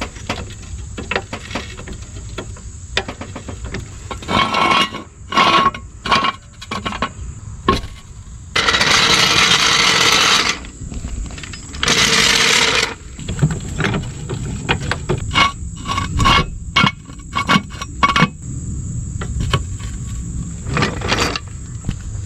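Hand tools and metal parts at work on a car's rear suspension: a run of sharp metallic clicks, clanks and knocks, with two longer bursts of a power tool, one about nine seconds in and a shorter one about twelve seconds in.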